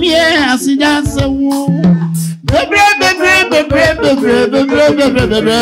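Music with singing over held instrumental notes, with a brief break about two seconds in.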